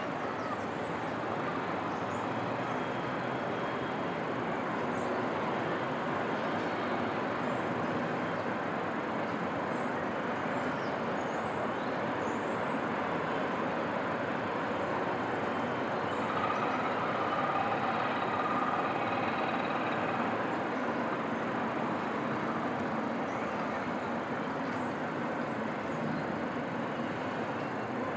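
Steady distant city traffic noise, an even rush with no single vehicle standing out, swelling a little past the middle with a faint steady whine.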